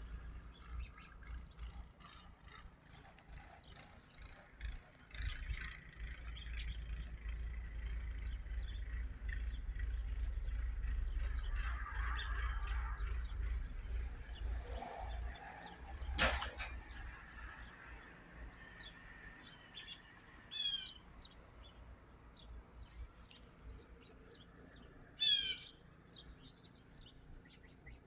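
A flock of American robins calling: many short high chirps throughout, with two quick runs of notes in the second half. A single sharp click a little past the middle, and a low rumble through the first half.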